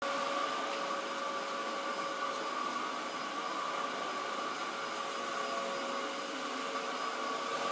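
Dyson vacuum cleaner running steadily: an even rush of air with a steady whine over it.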